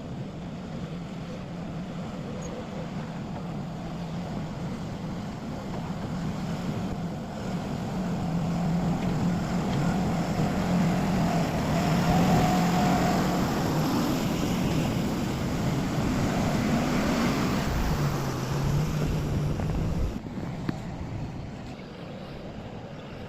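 Excavator's diesel engine running under load. It grows louder through the middle, its pitch steps down briefly, then it settles back quieter near the end.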